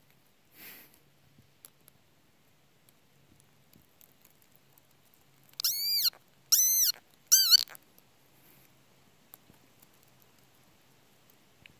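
Frog screaming in distress while a garter snake swallows it: three loud wails in quick succession about halfway through, each rising and then falling in pitch.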